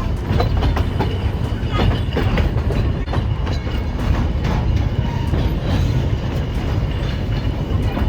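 Puffing Billy narrow-gauge steam train under way, heard from aboard: a steady rumble of the carriages with irregular clicking and clatter of the wheels over the rails.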